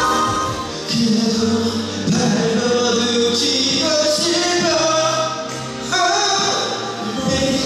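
A man singing a slow melody into a handheld microphone, holding long notes, over musical accompaniment.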